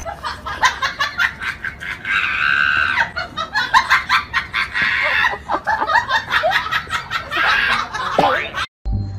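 A person laughing in repeated short bursts, with high chirping sounds mixed in.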